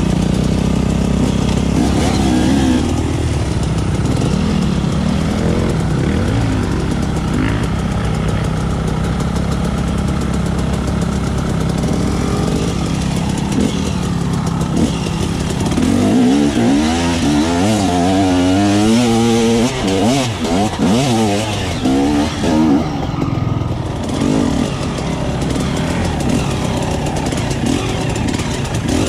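Enduro dirt bike engine running: held fairly steady for the first half, then revved hard up and down over and over from about halfway through.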